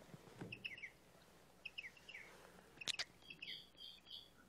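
Faint birds chirping: short falling chirps come several times, with a single sharp click just before three seconds in.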